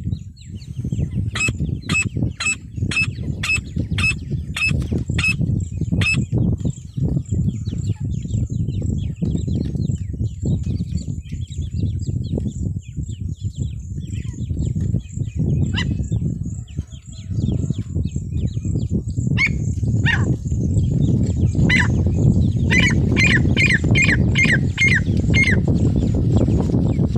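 Female francolin (teetar) calling: a run of about ten quick, evenly spaced high notes, then a few single notes, and near the end a faster run of about seven. A steady low rumble runs underneath.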